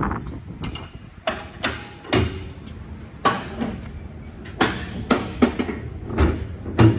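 A series of sharp knocks, about a dozen, irregularly spaced, some of them ringing briefly, like hammer blows.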